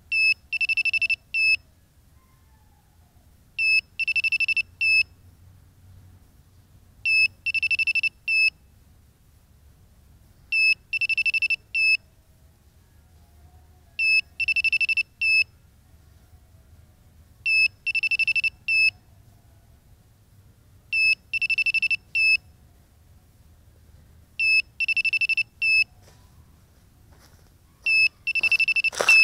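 Crashed FPV drone beeping a locator alert: a high-pitched group of three beeps (short, longer, short) repeating about every three and a half seconds, nine times. A brief rustle and crackle comes right at the end as the last group breaks off.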